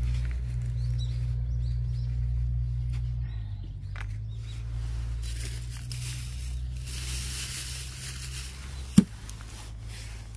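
Outdoor ambience: a steady low rumble that fades after about three seconds, a spell of hiss in the middle, and a single sharp knock about nine seconds in.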